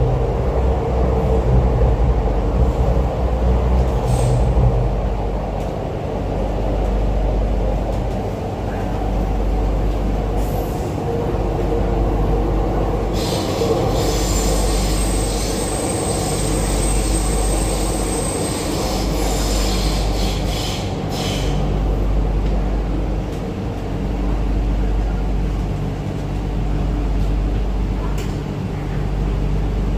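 MTR Island Line Q-Train running through a tunnel, heard from inside the car: a steady low rumble of wheels and running gear. About halfway through, a high hissing squeal from the wheels lasts for about five seconds.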